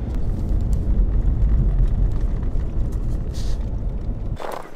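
Steady low engine and road rumble inside a truck's cab as it drives a snowy dirt road, cutting off near the end.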